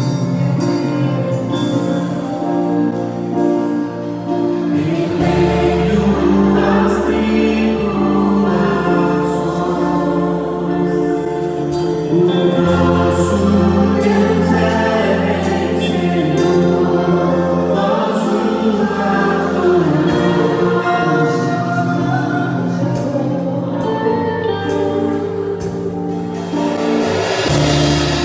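Gospel worship song: voices singing together over a band with sustained bass notes that change every few seconds and light percussion.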